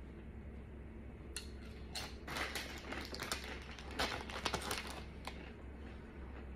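A crinkly chip bag rustling and crackling as a hand rummages in it, mixed with chips crunching as they are chewed; the crackling comes in a dense run from about two seconds in and stops shortly before the end.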